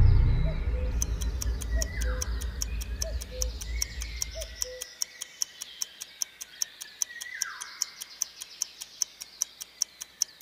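Quiz countdown timer sound effect: sharp, even ticking at about four ticks a second. Behind it are a few downward-sliding whistled calls, and a low rumble fades out about five seconds in.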